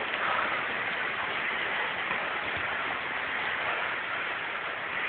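Steady rain falling in a microburst thunderstorm: an even hiss of rain with no breaks.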